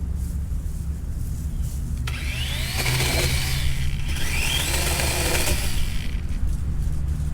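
DeWalt 20V cordless chainsaw cutting through a tree branch: a steady low motor hum, with the chain's cutting noise swelling from about two seconds in to about six seconds and a couple of rising whines as it works through the wood.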